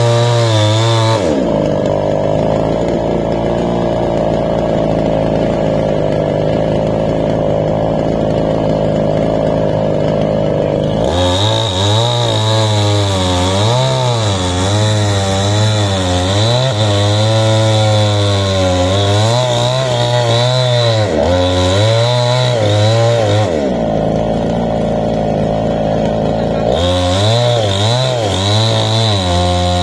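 Small two-stroke chainsaw cutting wood under load. Its engine pitch drops about a second in and holds low for some ten seconds as the chain bogs into the cut, then rises and wavers up and down. It drops low again for a few seconds near the end.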